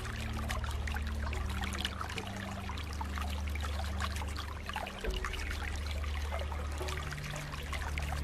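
Flowing water trickling and splashing: a dense, steady patter of small splashes over a low rumble.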